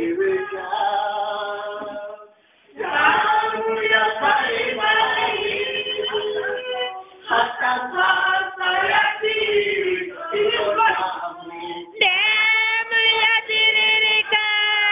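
Church congregation singing a worship song together, with women's voices prominent. The singing drops out briefly about two seconds in and changes abruptly near the end.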